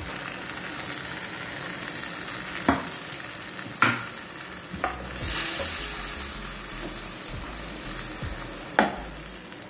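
Bitter gourd and meat curry sizzling steadily in a steel pot while a metal ladle stirs it. The ladle knocks sharply against the pot four times.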